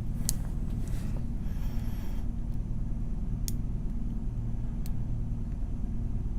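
Lock pick and tension wrench working in a small cheap Tru Bolt padlock's keyway: a few sharp metallic clicks and a brief scrape. Under it runs a steady low background hum.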